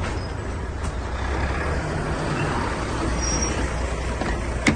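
Steady low rumble and hiss of outdoor background noise, with one sharp click near the end, as the car's door latch is opened.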